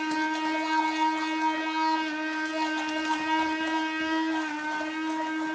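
Hand-held immersion blender motor running at a steady speed in a creamy mixture: a constant, loud whine with many overtones that holds one pitch throughout.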